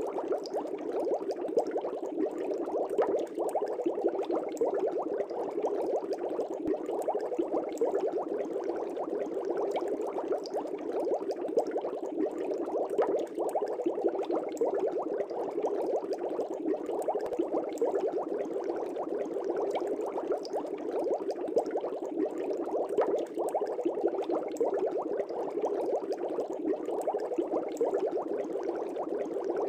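Fish tank bubbling steadily: a continuous, dense patter of small bubbles rising and popping in the aquarium water.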